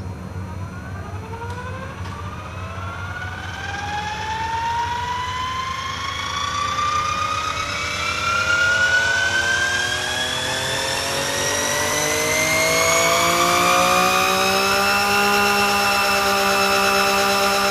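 A motor or engine spinning up: one whine that climbs slowly and steadily in pitch and grows louder, then levels off near the end.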